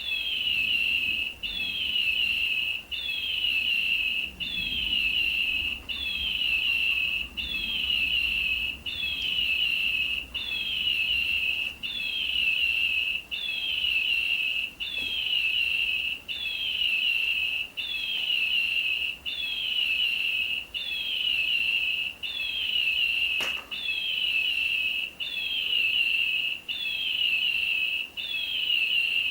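Electronic toy bird chirping in a repeating loop: a high whistled tone with a falling trill, repeated very evenly about every second and a half. A single sharp click about 23 seconds in.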